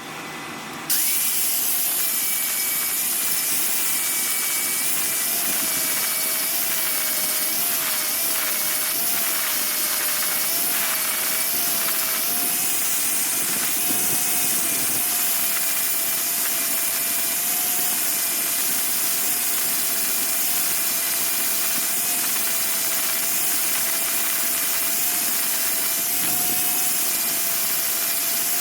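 Welding arc on steel motor-mount parts: a steady hiss with a faint, slightly wavering whine, starting about a second in and running unbroken.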